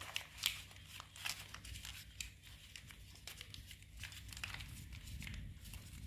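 A sheet of school notebook paper crinkling and crackling as hands twist and press it tightly around a lime, a faint stream of irregular crackles.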